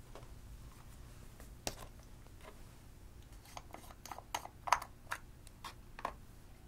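Plastic clicks and taps from a round plastic cosmetic pot being handled and its screw-on lid opened: one sharp click about a second and a half in, then a run of quick small clicks over the next few seconds, the loudest near the middle.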